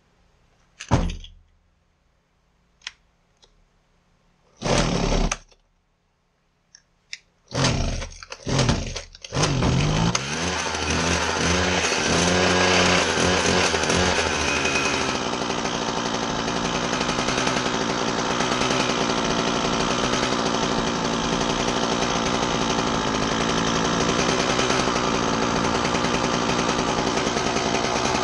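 Husqvarna 122HD60 hedge trimmer's small two-stroke engine being pull-started: a few short pulls on the recoil starter, then about ten seconds in it catches, its speed climbs and settles, and it keeps running steadily while the carburetor is adjusted.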